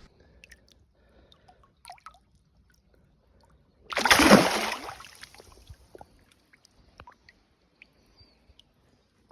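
A single loud splash in the river about four seconds in, fading over a second, among faint scattered water and handling noises.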